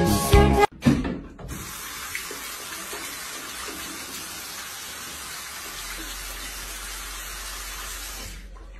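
Brief music cuts off under a second in. Then tap water runs steadily from a bidet faucet into the ceramic bowl.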